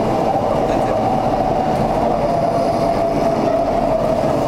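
Skytrain carriage running, heard from inside the car: a steady rumble and rush with a constant whine that sinks slightly toward the end.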